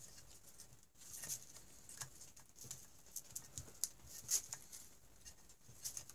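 Hand-handling noise as a snowmobile stator's wiring is fed through the engine case: faint rubbing and rustling of wires with scattered small clicks of metal parts, the sharpest click about four seconds in.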